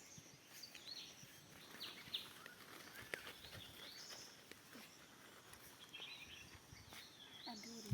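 Faint birdsong: scattered short, high chirps and brief whistled glides from small birds, over a quiet hiss of outdoor background.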